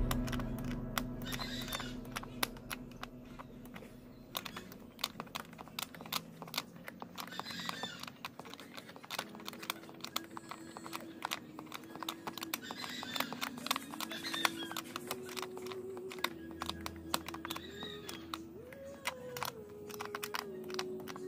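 Quiet background music with a melody stepping up and down, over frequent small clicks and taps from hands working a bolt and the plastic base of a motorcycle seat.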